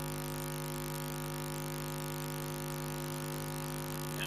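Steady electrical mains hum, a buzzy tone with a stack of overtones.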